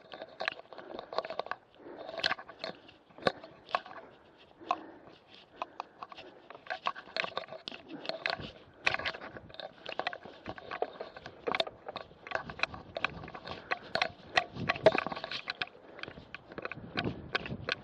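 Mountain bike rattling and clicking as it is ridden slowly over a bumpy grass pasture, a dense run of irregular knocks and crackles from the frame and drivetrain jolting on the rough ground.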